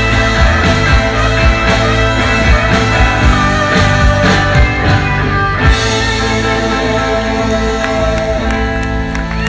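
Rock band playing live and loud: electric guitars, bass and drums. The drums keep a steady beat until a little past halfway, then stop, and the guitars and bass hold ringing chords.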